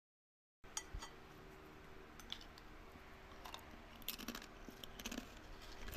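Watermelon being bitten and chewed: irregular crisp, wet crunches and clicks, beginning after a short silence.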